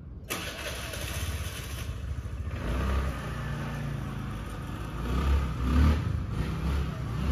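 A motor vehicle's engine running close by, growing louder a couple of seconds in and loudest toward the end.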